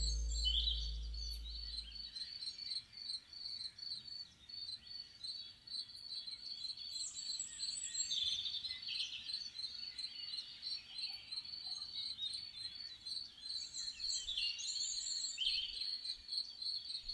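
Crickets chirping in a steady, rapid high pulse, with birds singing short curving phrases on and off over it. A low guitar note fades out in the first two seconds.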